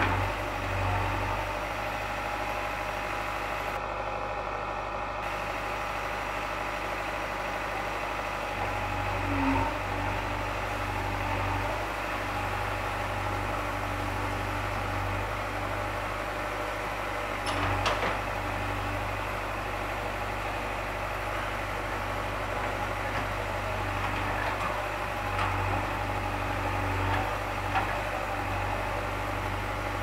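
JCB 3DX backhoe loader's diesel engine running steadily while the backhoe arm and bucket work, with a few short knocks, the sharpest about 18 seconds in.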